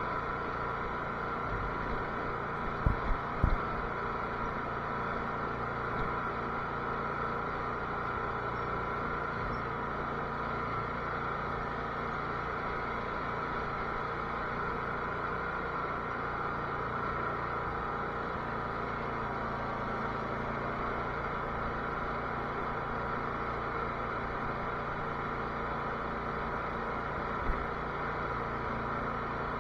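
Cub Cadet garden tractor engine running steadily at an even speed. Three quick knocks come about three seconds in, and one more near the end.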